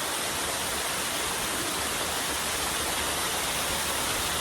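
Steady rushing of flowing water from a stream, an even hiss that does not change.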